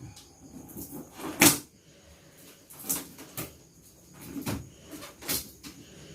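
Cardboard parcel packaging being handled and pulled open: a series of short knocks and scrapes, the loudest about one and a half seconds in. A faint steady high chirr of crickets runs behind.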